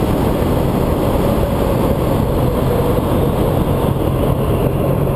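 Suzuki Bandit 1200S's inline-four running steadily under way, heard from on the bike through a loud, even rush of wind on the microphone.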